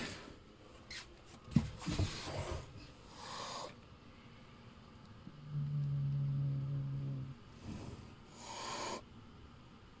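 Calico cat hissing twice, once about two seconds in and again near the end: a frightened warning hiss at the person it has still not got used to. A few sharp knocks come just before the first hiss, and a steady low tone sounds between the two hisses.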